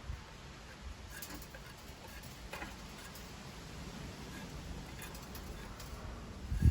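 Metal lathe chips being tipped and brushed into a chip tray, giving scattered light ticks and small rattles, with a heavier thump near the end.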